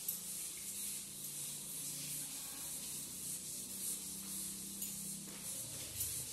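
A chalkboard being wiped clean: a dry scrubbing hiss that comes in repeated back-and-forth strokes, about two a second.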